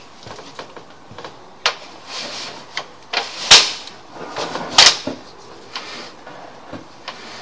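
Irregular clicks, knocks and short scraping rushes as a sewer inspection camera's push cable is fed forward into the drain line, with two sharper knocks near the middle.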